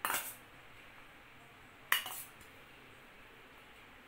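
A steel spoon clinks twice against steel dishes, about two seconds apart, each with a short ring, as egg filling is scooped out of a stainless steel bowl.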